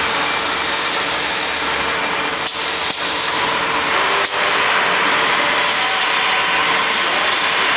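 Blister packing machine running: a steady mechanical hiss and clatter, with a few sharp metallic knocks in the middle.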